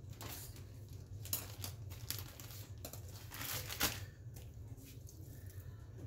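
Plastic zip-top storage bag crinkling and rustling in several short bursts as it is handled and opened, loudest about three and a half seconds in. A low steady hum runs underneath.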